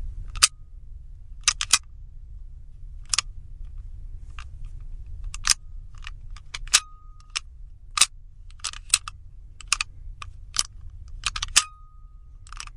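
A door lock being worked over and over: about fifteen sharp metallic clicks of the bolt and latch at uneven intervals, over a low steady hum. Twice a click leaves a short ringing tone.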